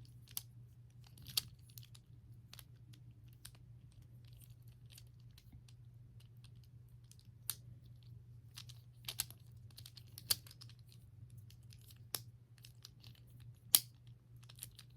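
Infinity cube fidget toy being folded and flipped in the hands: irregular light clicks and taps of its hinged plastic blocks, one sharper click near the end, over a steady low hum.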